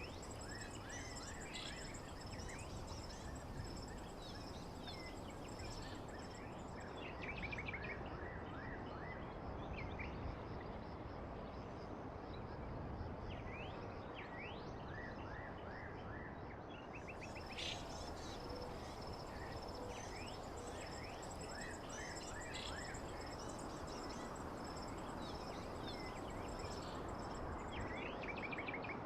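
Outdoor nature ambience of songbirds chirping in quick repeated calls over a steady hiss, with insects trilling in a high steady band that drops out for about ten seconds in the middle.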